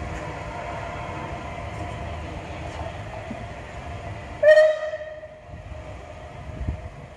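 A locomotive running steadily at a distance, then one short, loud toot of its whistle about four and a half seconds in, dying away within half a second.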